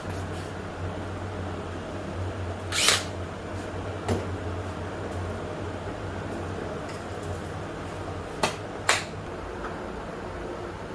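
Tools and hardware knocking and clicking during a bench vise installation: four short, sharp knocks, two close together near the end, over a steady low hum.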